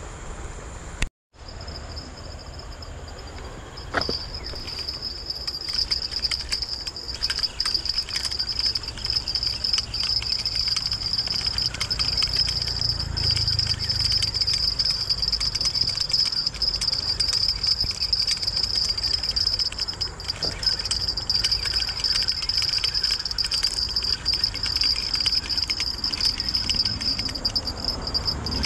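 Insects chirring in a steady, high-pitched drone that grows louder about four seconds in, over a faint low rumble and a few light clicks.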